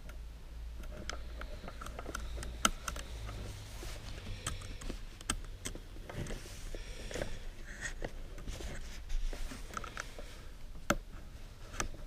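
Irregular small metallic clicks and rustling of the umbrella canopy fabric as a hand works a bicycle spoke against a broken umbrella rib to fit it as a splint. Two sharper clicks stand out, one a few seconds in and one near the end.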